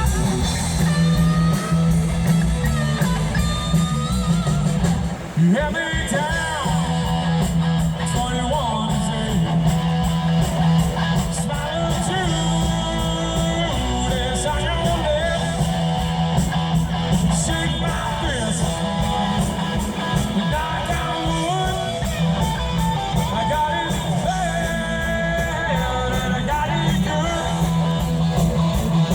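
Live rock band playing loudly through a PA, with electric guitar, bass, drums and a singing voice.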